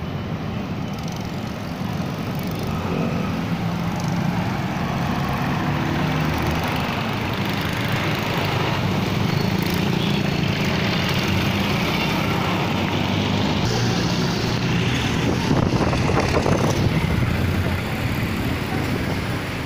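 Busy street traffic: motorcycles and cars passing steadily, their engines running, with a louder pass about three-quarters of the way through.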